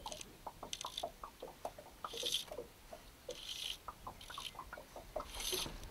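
Fly line being stripped in by hand in short pulls while a hooked trout is played, each pull a brief hiss about once every second or so. Light irregular clicks and slaps of water run between the pulls.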